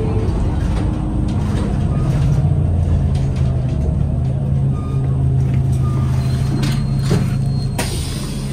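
Cabin sound of a New Flyer DE60LFR diesel-electric hybrid articulated bus rolling slowly into a stop: a steady low drivetrain hum, with a hiss near the end.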